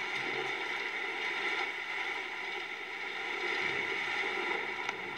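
Steady rushing storm noise from tornado footage playing through laptop speakers, with a small click near the end.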